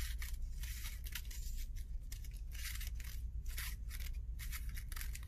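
Scissors cutting a strip of crepe-paper streamer lengthwise: a steady run of snips, about two to three a second.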